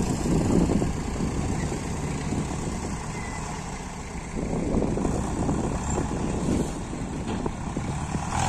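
Diesel tractor engine working under heavy load as it pulls a trolley full of soil through soft sandy ground, its note swelling louder about four seconds in.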